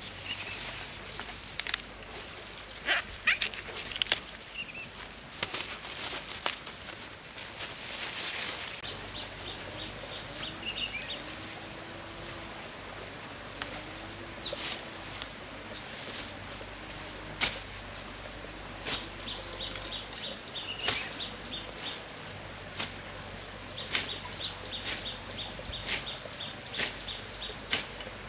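Outdoor ambience: scattered sharp knocks and clicks, short high chirps, and a steady high insect whine, with a run of short low animal calls from about ten seconds in.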